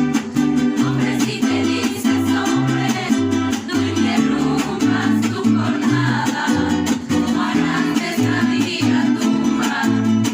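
Mariachi ensemble playing a song: a plucked bass line stepping between low notes about twice a second under strummed guitar chords, with melodic lines above.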